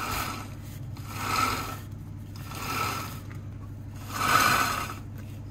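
Stiff brush scrubbing a motorcycle drive chain coated with chain-cleaner spray, in slow scraping strokes about every second and a half, over a steady low hum.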